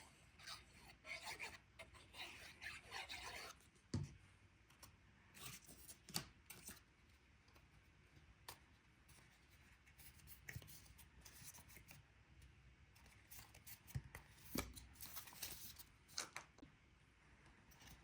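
Quiet rubbing and rustling of cardstock with scattered light taps and a couple of soft knocks, as paper pieces are glued and pressed into place.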